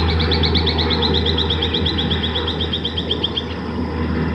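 A bird sings a fast trill of short, even notes, about eight a second, falling slightly in pitch and stopping after about three and a half seconds, over a steady low rumble.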